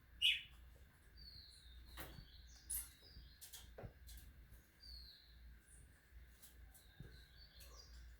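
Small birds giving short, scattered chirps and calls, the loudest a brief falling chirp just after the start and another sharp one near the three-second mark.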